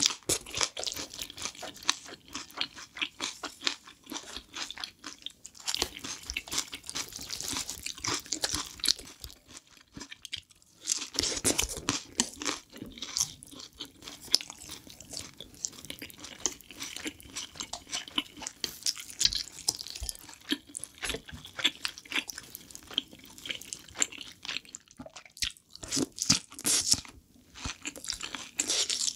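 Close-miked chewing and crunching of spicy jjajang with chillies and fried dumplings: a continuous run of small crackling chews and bites, with a short pause about ten seconds in.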